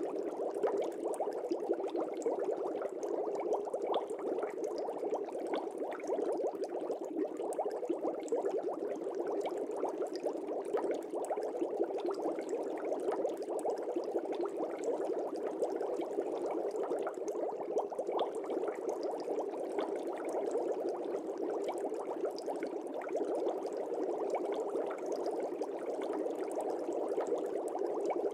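Aquarium air bubbles: a steady, dense bubbling made of many small pops.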